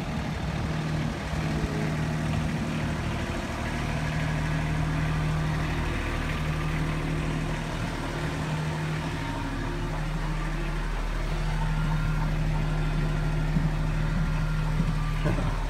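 Engine of a compact tracked utility loader idling steadily.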